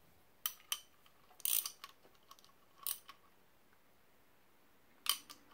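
Several separate metallic clicks and clacks from a socket ratchet and socket being worked onto the forcing screw of a gear puller, with a short run of clicks about a second and a half in.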